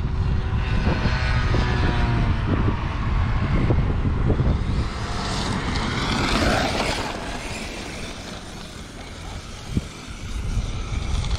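Arrma Mojave 8S, a brushless electric RC desert truck, being driven hard: its motor whine rises and falls in pitch with the throttle, peaking about two-thirds of the way through and then fading as the truck moves away. Wind rumbles on the microphone throughout.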